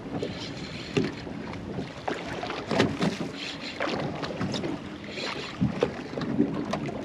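Water slapping against the hull of a 22-foot bay boat, with wind on the microphone and scattered small knocks.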